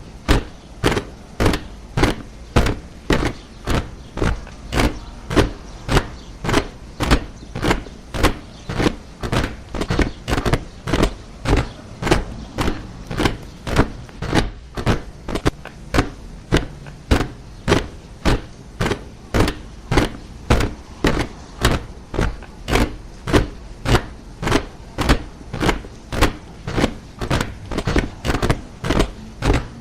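A troop of soldiers marching in step, their boots striking together in a steady beat of about two steps a second.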